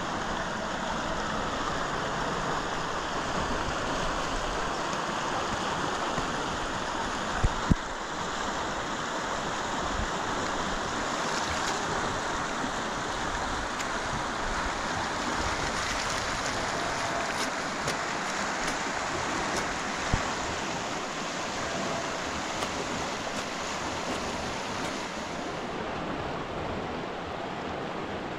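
Steady rush of running water, broken by a quick pair of sharp knocks about seven seconds in and one more knock around twenty seconds.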